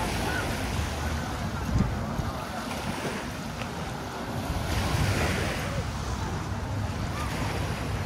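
Surf washing onto the beach, with wind buffeting the microphone. The wash swells about five seconds in.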